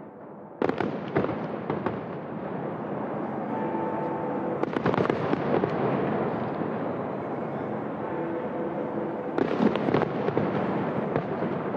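Fireworks bursting and crackling: a sudden volley of bangs about half a second in, then a dense, continuous crackle with fresh flurries of bangs around the middle and near the end.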